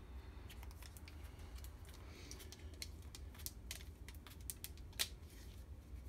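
Scattered light clicks and rustling of objects being handled, with one sharper click about five seconds in, over a steady low hum.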